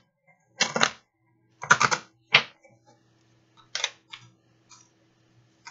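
Deck of cards shuffled by hand: quick papery clatters. Several loud bursts come in the first half and a few lighter clicks follow.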